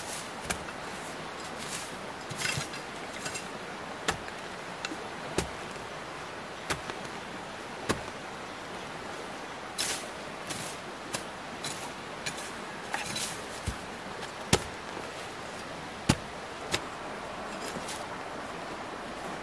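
Irregular sharp clicks and light knocks of a metal folding shovel and a knife being handled and worked against the soil, over a steady background hiss.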